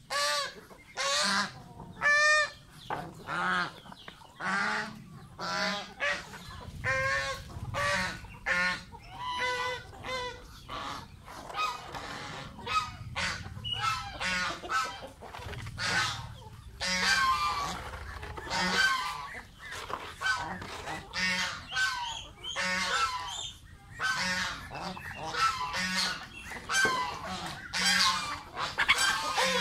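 Domestic geese honking again and again, many loud calls in quick succession, some overlapping, amid a mixed flock of chickens and ducks.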